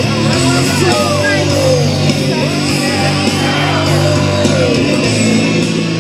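Loud rock music with electric guitar and a steady bass, playing without a break.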